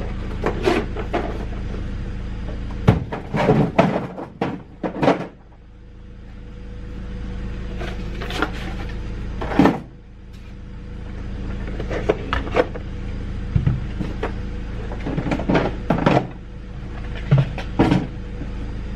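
Metal hand tools and bit sets clinking and clattering as they are put back into a toolbox drawer: irregular knocks in short clusters, the loudest a single clank about ten seconds in, over a steady low hum.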